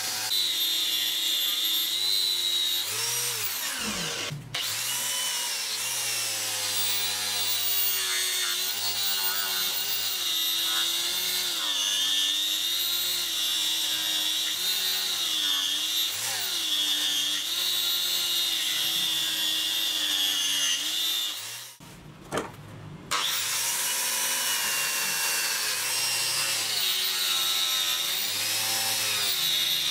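Angle grinder with a polishing disc running against the steel face of an axe head, its whine wavering in pitch. It drops out briefly twice, near 4 seconds and about 22 seconds in.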